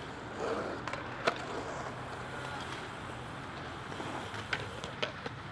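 Skatepark sounds: wheels rolling on concrete with a sharp clack about a second in and a few lighter knocks near the end.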